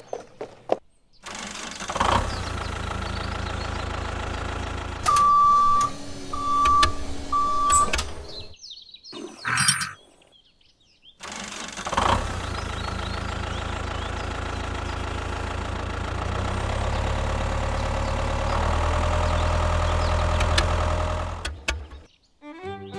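Tractor engine starting and running, with three short, evenly spaced beeps about five to eight seconds in. It stops, starts again a few seconds later, and runs a little louder in two steps toward the end.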